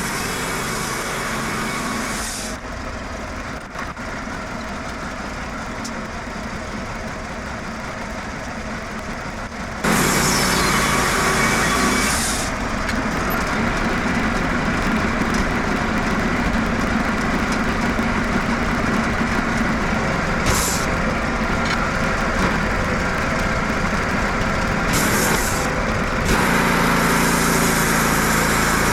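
Wood-Mizer LT15 Wide portable band sawmill running steadily while edging bark-on one-inch white oak boards, with louder stretches about ten seconds in and again near the end.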